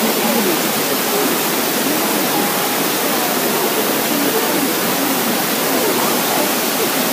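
Steady rush of the hot spring waterfall's water, with faint chatter of a crowd of people behind it.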